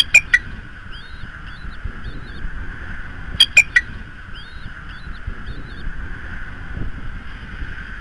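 Bald eagle calling: two short series of about three high chirps each, one right at the start and another about three and a half seconds in, over a steady background hum and rumble.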